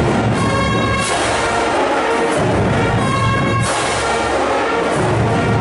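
High school marching band playing: trumpets, sousaphones, drums and cymbals, with a loud held brass chord struck twice, low brass and drums underneath.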